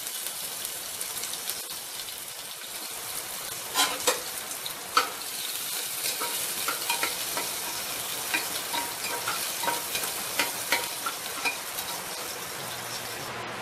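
Chopped onion sizzling in hot oil with panch phoron in an aluminium pressure cooker: a steady frying hiss. A metal spatula scrapes and clicks against the pot as it is stirred, sharpest about four and five seconds in.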